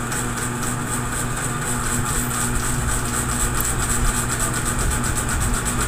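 Steady machine hum with a low drone that does not change, like a motor running at idle.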